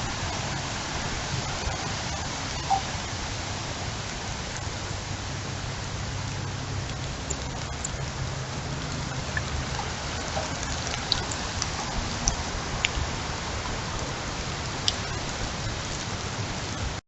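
Heavy rain falling steadily in a storm, a constant hiss with scattered sharp ticks of drops striking hard surfaces.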